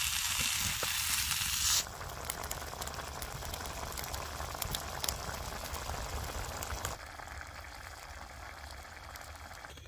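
Peas in onion-tomato masala sizzling and bubbling in a pot over a campfire, with faint crackles. The level steps down abruptly twice, about two and seven seconds in.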